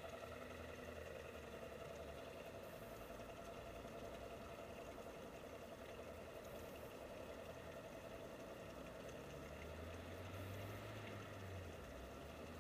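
Faint steady hum of the scale model tug's small motor running as the boat moves off, with a low hum swelling briefly near the end.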